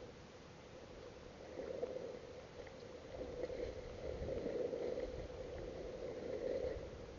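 Muffled water sloshing and gurgling that swells and fades in waves.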